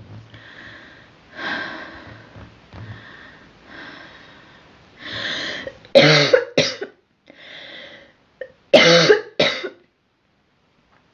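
A girl coughing: softer, breathy throat sounds for the first few seconds, then two loud pairs of sharp coughs, about six and nine seconds in.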